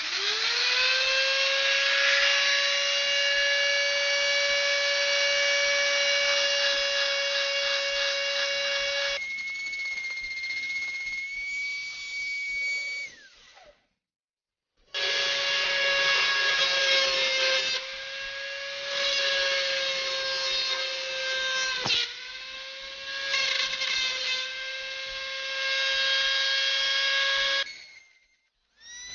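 Electric rotary tool with a flexible-shaft handpiece and a small burr, spinning up to a steady high whine and carving cow bone. It cuts out briefly about halfway and starts again. Its pitch then dips several times as the burr bites the bone, before it stops near the end.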